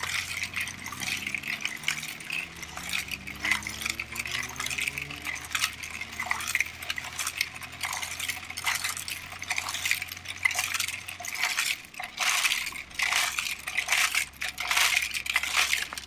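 A Bruder toy concrete mixer and the gravel around it being handled: many small, irregular clicks and clinks of hard plastic and pebbles, over a faint low hum.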